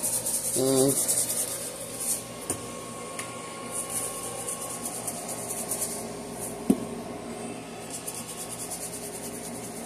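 Seasoning shaken from a spice shaker bottle over a bowl of raw chicken, a fast rattle in several short spells. One sharp tap comes a little before the seven-second mark.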